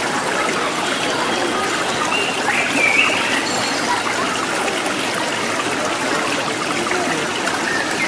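Water running steadily, like a stream or spring flowing.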